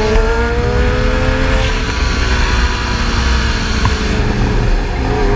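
Motorcycle engine running at freeway speed, its pitch climbing a little for the first two seconds and then slowly easing off, over heavy wind rumble on a helmet-mounted microphone.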